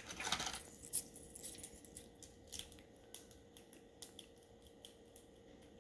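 Small metal padlocks and tiny keys being handled, giving a faint run of quick clicks and light rattles, busiest in the first few seconds and thinning out after.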